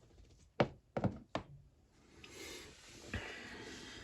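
Small metal ratchet parts and tools being handled and knocked against a work surface during disassembly: three sharp knocks in quick succession, then a rustling scrape with one more knock.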